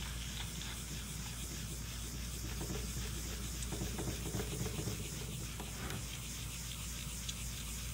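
Sponge-backed polishing pad scrubbed by hand over a wet stone tile, a soft, steady rubbing and scratching as the etch mark is wet-polished out.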